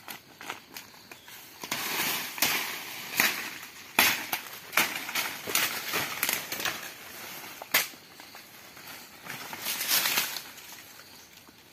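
Dry undergrowth crackling and rustling, with twigs snapping in irregular sharp cracks. The loudest cracks come about four seconds in and again near eight seconds.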